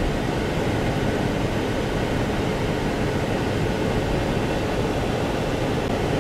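Steady road noise inside a moving car's cabin: tyres and engine running at about 45 mph on the highway, a constant low rumble with no change.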